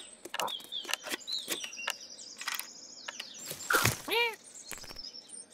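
Animated-cartoon sound of a cat scrabbling up a tree trunk: rapid clicks and scrapes of claws on bark, with high chittering squeaks from a squirrel. A short squeak that rises and falls comes about four seconds in.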